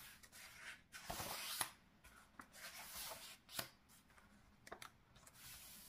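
A page of a large hardbound art book turned by hand: a soft paper swish about a second in, a few sharp paper snaps, then faint rubbing of fingers on the paper.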